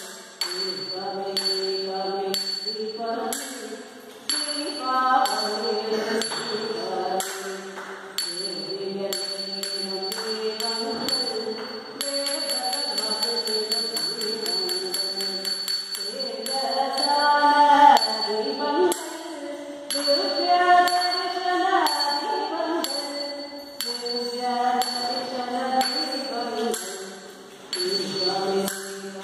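Devotional song accompanying a dance: a voice singing a melody over a regular percussive beat, which runs faster for a few seconds midway.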